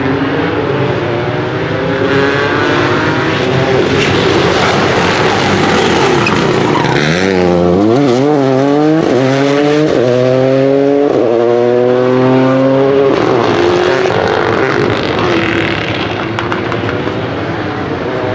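Rally car engine at full throttle sweeping past, then accelerating away through several quick upshifts, its pitch climbing and dropping at each gear change before fading.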